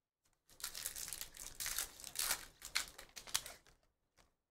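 Plastic trading-card pack wrapper crinkling as it is ripped open and handled, a dense crackle that starts about half a second in and stops near the end.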